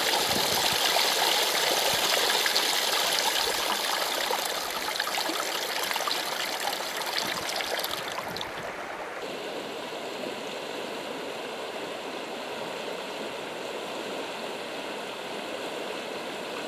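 Water streaming and splashing over river rocks, with water pouring out of a beached inflatable raft's floor into the shallows. It is a steady rush that grows quieter and duller about eight to nine seconds in.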